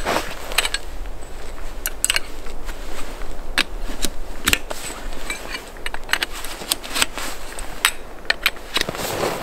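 Metal tent pole being handled and extended, its sections giving irregular sharp clicks and clacks.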